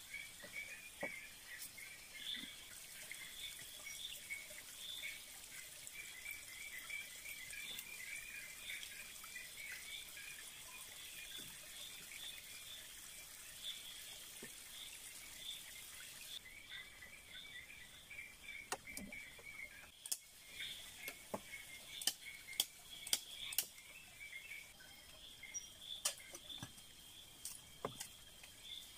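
Night chorus of small chirping callers, rapid chirps repeating steadily in two pitches over a faint hiss. From about twenty seconds in, a series of sharp clicks and snaps rises above it.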